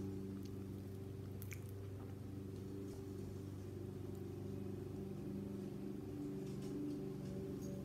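Quiet eating of soft oatmeal from a metal spoon, with a faint light click about a second and a half in, over a steady low hum.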